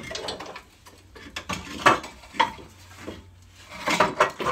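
Irregular metal clanks, knocks and scrapes as the rear axle beam of a Peugeot 107 is worked free of its pivot mounts and comes out, loudest about two seconds in and again near the end.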